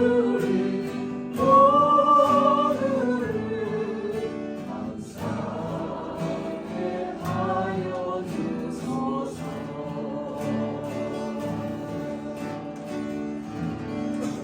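Small church vocal ensemble singing a gospel song in harmony over strummed acoustic guitars. A loud, long note with vibrato is held about one and a half to three seconds in, and the singing is softer from about four seconds on.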